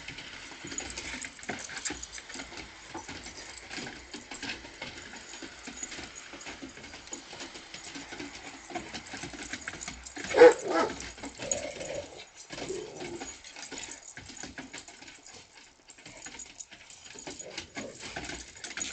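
A dog, with scattered rustling and clicking and one loud, short pitched cry about ten seconds in, followed by a softer one.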